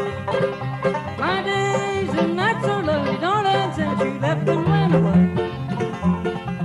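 Bluegrass band playing an up-tempo tune: banjo, guitar, mandolin and upright bass, with the banjo prominent over a steady bass line. About a second in, a lead melody with bending, sliding notes comes in over the band for a few seconds.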